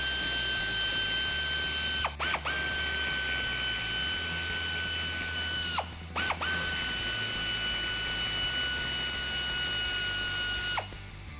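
Pneumatic air ratchet running with a steady high whine as it spins out the 8 mm bolts holding the plastic wheel-well liner. It stops twice briefly, with quick on-off trigger blips, then runs again, and winds down and shuts off near the end.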